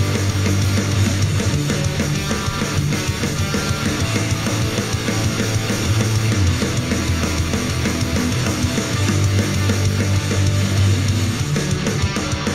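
Alternative rock track with electric guitars and drum kit, played back through a JBL Flip 3 portable Bluetooth speaker as a sound test.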